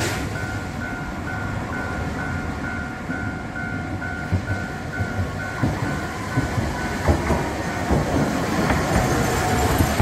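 Japanese level-crossing warning bell dinging at an even quick pace, falling silent about seven seconds in. Under it a Kagoshima City Tram streetcar approaches on ballasted track, its wheels clattering over the rail joints in a clickety-clack that grows louder as it reaches the crossing.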